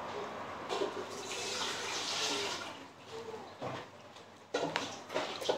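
A person eating a steamed momo close to the microphone: a long hiss at the mouth, then wet chewing and smacking clicks near the end.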